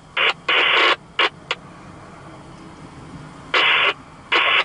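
Railroad scanner radio crackling with short, abrupt bursts of static as transmissions key up and drop: a cluster in the first second and a half, then two more near the end, over a faint low hum.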